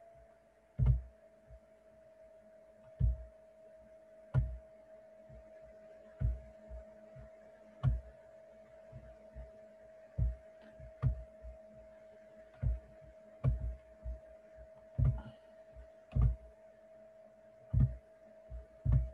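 Irregular short clicks with soft thumps, about one a second, from a computer mouse being clicked while a screen share and slideshow are set up, over a faint steady hum.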